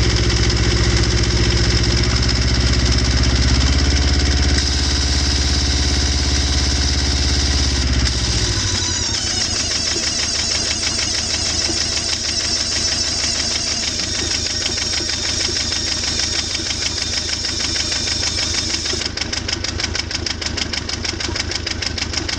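Beta 14 two-cylinder marine diesel running through a PRM 60 gearbox, with the strange noise that the owner puts down to the gearbox. About eight seconds in, the deep engine note drops away and a fast, even rattle is left.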